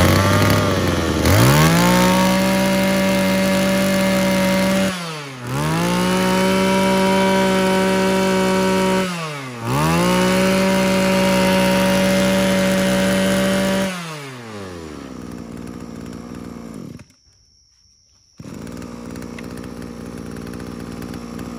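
Mitsubishi TB26 26cc two-stroke brush cutter engine running, revved to high speed three times with brief drops in between, then falling back to a steady idle. The sound stops for about a second after the drops, then the idle runs on.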